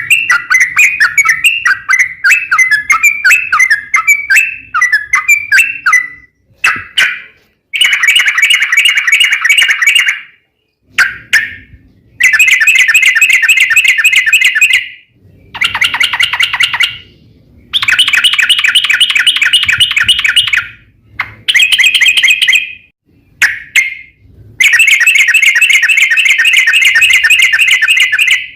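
Yellow-vented bulbul (trucukan) singing loudly: choppy repeated phrases at first, then about six long, rapid trills of one to three seconds each, separated by short pauses.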